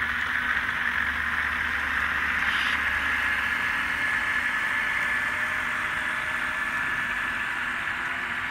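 N-scale model freight train running past at full throttle, hauled by ScaleTrains GE ET44AC locomotives with onboard diesel sound: a steady rushing noise. A low rumble fades out about three seconds in, and a thin steady whine starts then.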